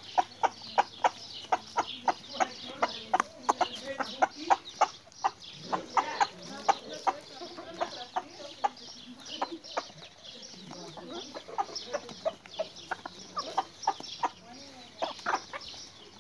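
A flock of free-range chickens clucking: many short, sharp clucks in quick succession, thinning out and becoming irregular after the first few seconds, with a few longer drawn-out calls mixed in.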